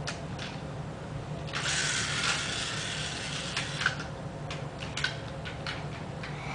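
Small toy cars clicking and knocking against one another as they are picked up and set down, with a rasping whir of about two seconds from a toy car's mechanism about a second and a half in.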